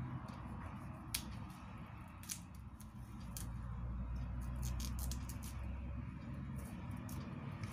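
Kitchen knife cutting broccoli florets on a plastic cutting board: scattered crisp snaps and taps, coming more often near the end, over a low steady hum.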